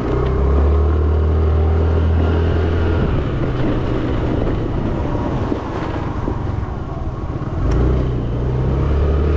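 Yamaha Fascino scooter's single-cylinder engine running on the move, over wind and road noise. The engine hum is strong at first, drops back about three seconds in as the throttle eases, and picks up again about eight seconds in.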